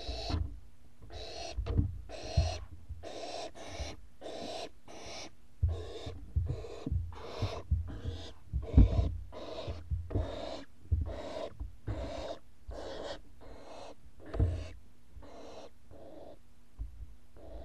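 Owls in a nest box giving a rapid run of short, raspy, hissing calls, about one to two a second, stopping shortly before the end, with low bumps of movement in the box.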